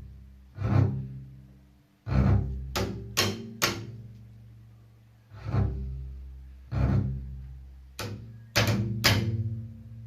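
Low string instrument's E string played in an improvisation: about ten hard, irregularly spaced attacks, each ringing on as a low tone that slowly dies away.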